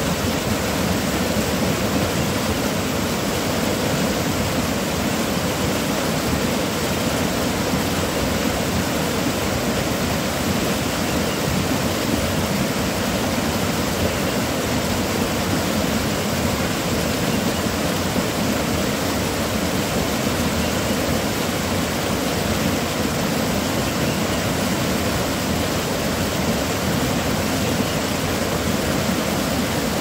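Fast-flowing rocky mountain stream rushing and splashing over boulders in small cascades: a loud, steady roar of white water.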